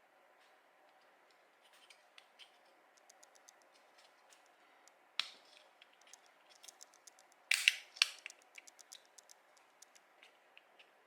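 3D-printed plastic parts being handled: scattered light clicks and ticks, one sharp snap about five seconds in, and a short run of louder clacks a little later, over a faint steady hiss.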